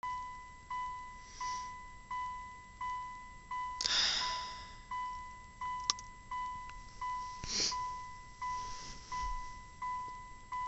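Electronic alarm ringing: one chime-like note struck over and over, about three times every two seconds, each fading before the next. Two loud breathy sighs break in, about four seconds in and again near eight seconds.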